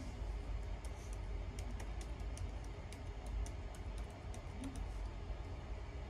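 Fanimation Aire Duo ceiling fan running, with a steady low rumble. A quick, irregular run of light clicks comes from about one second in until near the end.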